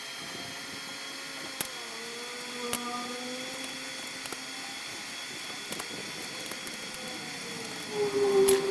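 Electric motor salvaged from a washing machine running a DIY coconut grater, a steady hum with a few sharp clicks. About eight seconds in it gets louder and its pitch dips briefly.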